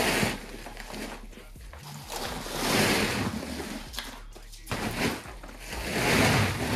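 Snow-matted fabric car cover rustling as it is pulled back off a car, in three swells of noise about three seconds apart.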